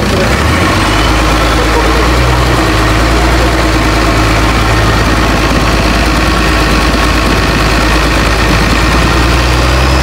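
Boat engine running steadily and loudly under way, with water rushing along the hull.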